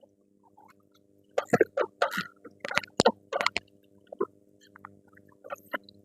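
Irregular run of sharp metallic clicks and knocks from hand tools being handled during strut work, thickest in the first half, over a faint steady hum.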